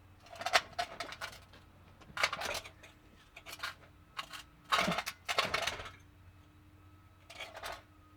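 Metal tools and parts clinking and clattering in short bursts, five or six clusters of sharp metallic knocks a second or two apart, the loudest about five seconds in. The sounds come from hand work on a car's rusted exhaust.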